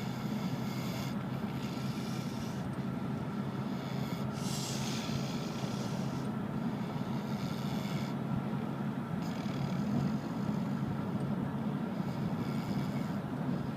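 A man snoring in a slow, repeating breathing rhythm, a raspy snore every two to three seconds, over a steady low drone.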